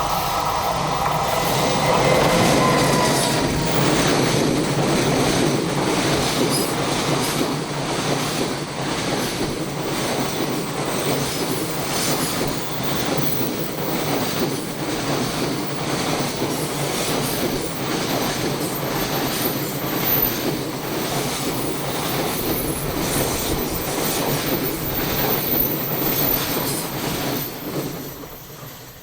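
A long train passing close by over a level crossing, its wheels clattering over the rail joints in a steady run of beats for nearly half a minute before it fades. At the start, the ringing tones of the crossing's warning bell are heard over the approaching train.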